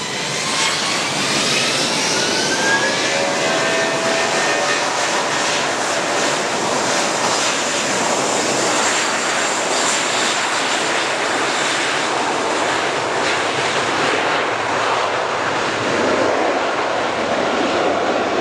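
Airbus A320's IAE V2500 turbofan engines spooling up to takeoff thrust. A rising whine over the first few seconds gives way to a steady jet roar as the airliner accelerates down the runway on its takeoff roll.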